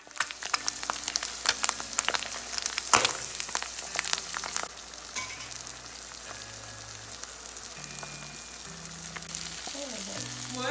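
Eggs frying in hot fat in a frying pan: a steady sizzle with crackling pops, busiest in the first few seconds.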